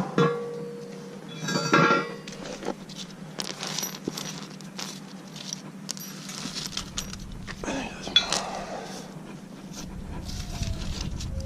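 Metal clinking and clattering of hand tools and loose bolts as body panels are unbolted from a compact tractor, with louder rattles about two seconds in and again near eight seconds.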